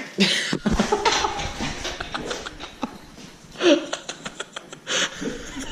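Young men laughing and gasping, with a scatter of short sharp clicks and rattles.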